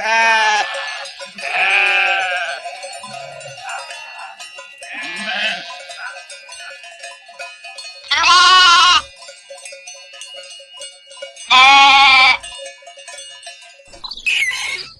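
Goats bleating: a series of wavering bleats, the two loudest about eight and eleven and a half seconds in.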